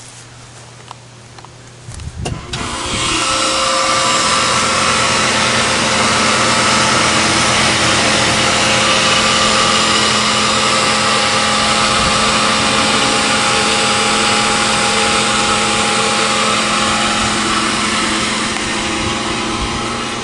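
Central air conditioner outdoor condensing unit starting up: a few clicks about two seconds in, then the condenser fan and compressor come on and run steadily with a loud whooshing rush and a steady hum.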